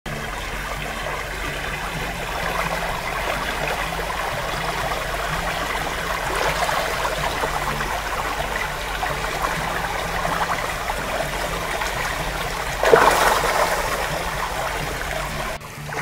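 Shallow rocky creek running over stones, a steady rush and trickle of water, with a brief louder burst of water about three seconds before the end.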